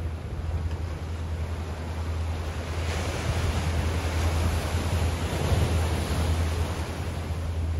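Bay water washing against a rocky shoreline. One surge swells about three seconds in and then ebbs, over a steady low rumble.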